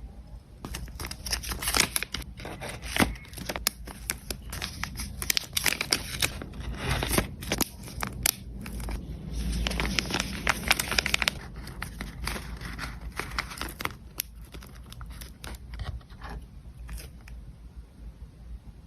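Packaging wrap being crinkled and torn by hand, a dense run of crackles and rustles that thins out near the end, with a longer continuous rustle about halfway through.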